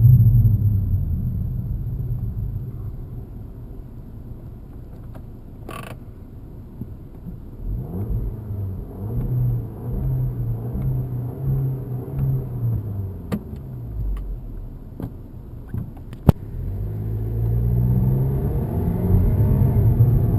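2007 Audi A3 engine and 6-speed DSG gearbox under way, revs falling at first, then climbing in steps through gear changes about 8 seconds in and climbing again near the end. A whirring noise rides along between the shifts around 2200–3000 rpm, which the owner traces to the DSG transmission, having ruled out the dual-mass flywheel, pulleys, alternator and A/C compressor, with no fault codes stored. A sharp click sounds about 16 seconds in.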